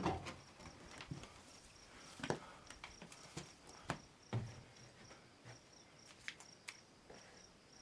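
Faint scattered rustles and knocks of hands-on garden work, with an insect chirping in a steady run of short high pulses, about four a second.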